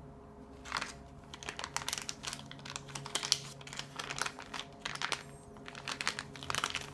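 Crinkling and crackling of a wintergreen gum packet's wrapper as it is opened by hand, a quick irregular run of papery crackles that begins under a second in.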